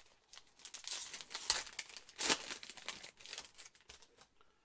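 A foil trading card pack being torn open and crinkled by hand: a run of sharp crackles, loudest twice near the middle.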